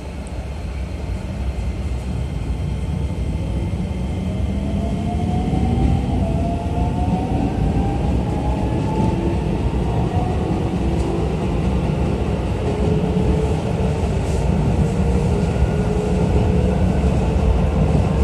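Keisei new 3000 series electric train pulling away, heard from inside the car. The traction motor whine climbs steadily in pitch as the train gathers speed, over a rumble of wheels on rail that grows louder during the first few seconds.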